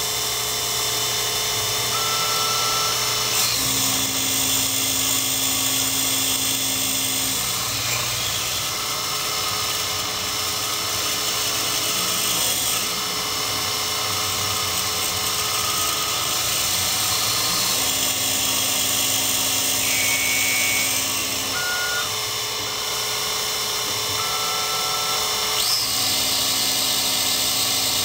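Miniature Sherline CNC cam grinder running: the grinding wheel spins steadily as it grinds the lobes of a small camshaft. A low steady hum starts and stops three times as the stepper-driven axes move.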